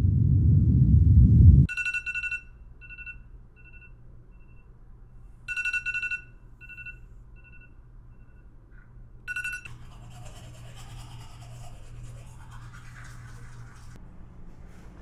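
A loud low rumble swells and cuts off abruptly about two seconds in. A smartphone alarm tone then sounds three times, each beep trailing off in fading repeats, and is stopped partway through the third. Soft rustling of movement follows.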